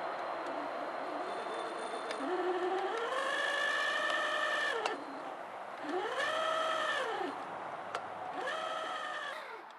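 Electric motor and gear whine of an RC crawler driven in three throttle pulls, each rising in pitch, holding, then falling away. The first pull is the longest.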